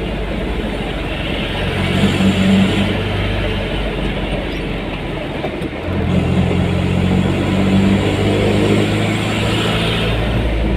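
Road vehicle engine running steadily over road noise while driving; the engine note shifts and rises about six seconds in.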